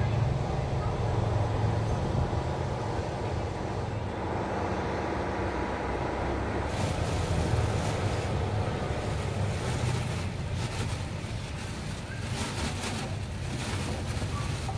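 Steady low street rumble of traffic, mixed with wind noise on the microphone. From about halfway through come scattered light crackles and rustles.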